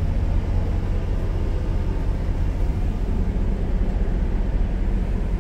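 Steady low rumbling hum of running machinery heard inside a diesel motorhome's cabin, with no breaks or changes.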